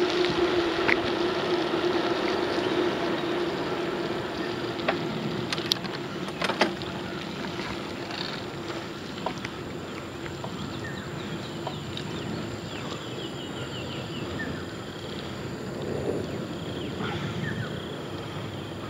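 Riding noise from a bicycle on a paved path: wind on the microphone and tyre rumble, loudest at first and easing off as the bike slows. A few sharp clicks come about five to seven seconds in.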